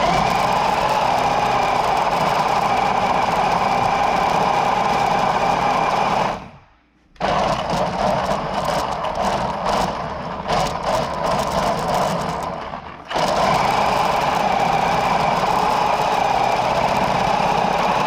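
Electric motor and gears of a small RC drift car whining at steady throttle. It cuts out briefly about seven seconds in, pulses on and off for several seconds, then runs steadily again.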